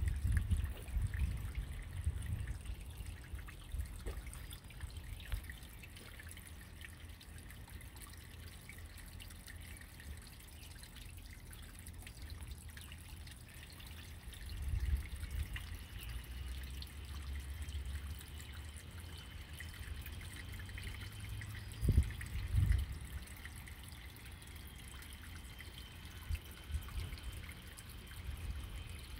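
Water trickling and dribbling steadily into a small garden fish pond, with a few low rumbles now and then, the loudest about two-thirds of the way through.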